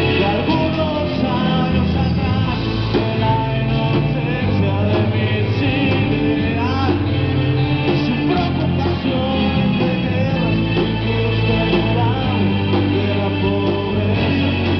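Live rock band playing a song: electric bass, guitar and drum kit, with a man singing.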